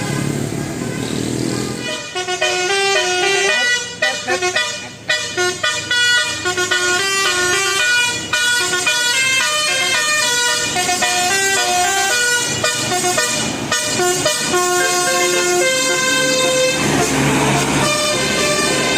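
Bus telolet horn of the Basuri type playing a melody: a long run of short, stepped musical notes that begins about two seconds in, over vehicle engine noise. A brief burst of noise comes near the end.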